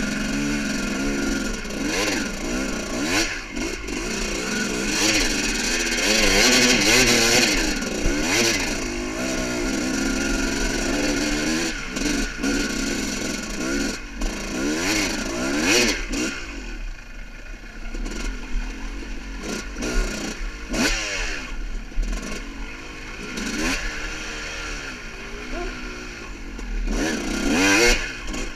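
Yamaha YZ250 two-stroke dirt bike engine revving up and down over and over as the bike picks its way along a rocky single track, with occasional sharp knocks.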